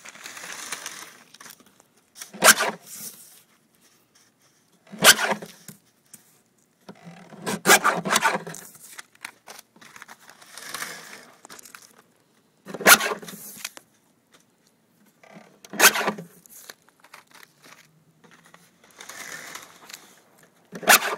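Stiff plastic mesh sheets being handled on a worktable: a sharp clack every few seconds, about six in all, with rustling and scraping of the sheets in between.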